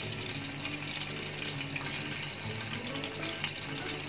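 Cumin seeds frying in warming oil in a karahi: a steady hiss, over background music of held low notes.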